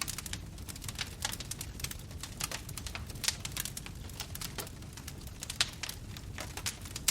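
Fire crackling: irregular snaps and pops over a low steady rumble, with a couple of louder pops about three and five and a half seconds in.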